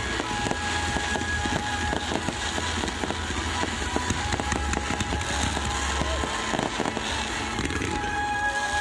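Fireworks going off: pyrotechnic fountains and aerial shells crackling continuously with many sharp pops, over music with a deep bass that drops out about six seconds in.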